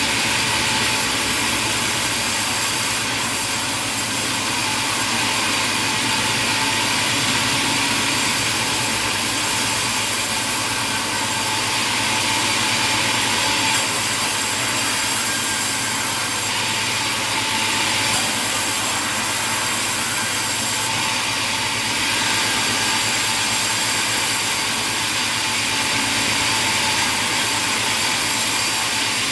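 Sawmill machinery running steadily: a loud, even, hissing drone with no breaks and no rise or fall.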